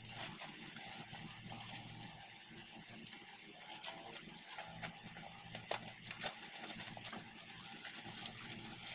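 Plastic shipping pouch crinkling and rustling as it is handled and cut open with scissors, with scattered small crackles and clicks.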